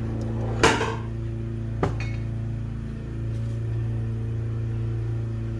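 Lawn mower engine running with a steady drone. A short clatter comes a little over half a second in, and a sharp click just before two seconds.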